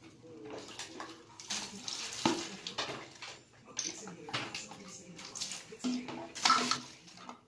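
Water splashing and sloshing as plastic soda bottles are rinsed out over a bucket, with knocks and clatters from the bottles being handled and set down.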